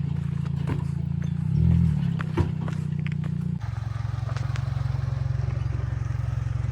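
Chevy Colorado's 2.7 L turbocharged four-cylinder engine running steadily, with scattered clicks and clatter from rocks and gravel under the tyres. About three and a half seconds in, the engine hum drops to a lower pitch.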